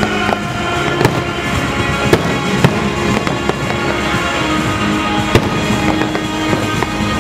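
Aerial fireworks shells bursting, a sharp bang every second or so with crackle between, over the show's music playing through loudspeakers. The sharpest bang comes about five seconds in.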